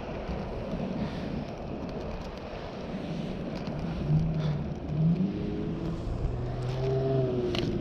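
In-line skate wheels on Twin Cam rustproof bearings rolling over pavement, a steady rumble. A low hum comes in about halfway through.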